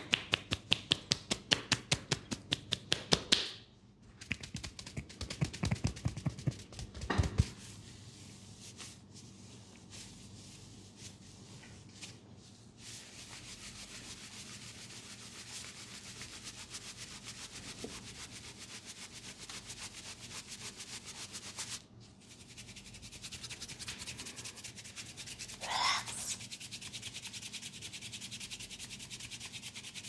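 Hands massaging a man's head: a fast even tapping of joined palms on the head for the first few seconds, then a steady scratchy rubbing of palms and fingers over his skin, hair and neck, with a brief louder swish near the end.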